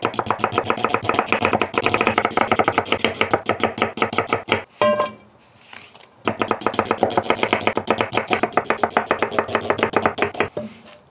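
A chef's knife slicing an onion on a wooden cutting board, with quick, evenly spaced cuts knocking through onto the wood. There are two long runs of cutting with a pause of about a second and a half between them.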